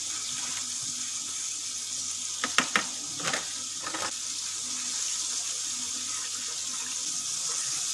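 Steady hiss of fish frying in oil, with a few clinks of a metal spoon against a ceramic bowl between about two and four seconds in as a batter is stirred.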